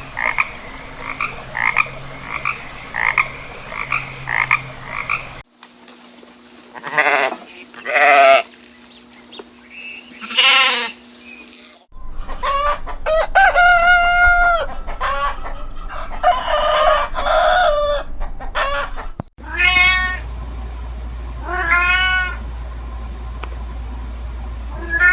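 A run of separately cut animal recordings: a frog croaking in an even rhythm about twice a second, then long wavering bleats, chickens clucking, and three more long bleats near the end.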